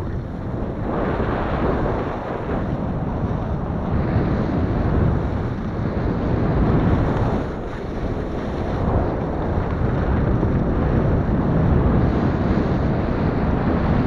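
Skis scraping and carving over crunchy snow during a downhill run, mixed with wind rushing over the camera microphone. The noise swells and eases from turn to turn, with a short lull about eight seconds in.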